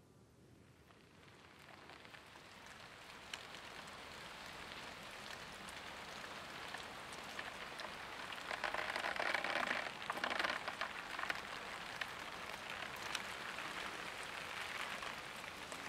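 Rain falling, fading in from near silence and growing steadily louder, with many small drop ticks and a louder stretch a little past the middle.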